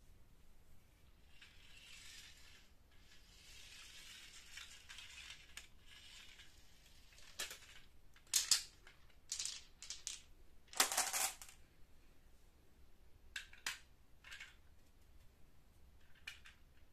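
Toy handling on a hard floor: faint rustling, then a scatter of sharp clicks and clattering knocks as a plastic toy dump truck loaded with balls is moved and set down. The loudest is a longer rattle a little past the middle.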